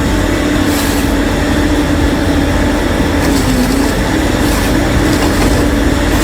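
Engine of a heavy logging machine running steadily under load, with a strong even drone that sags briefly in pitch about three and a half seconds in.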